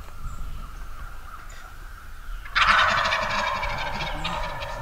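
A wild turkey gobbler gobbling once, about two and a half seconds in: a sudden loud, rapid rattling call that fades over about two seconds.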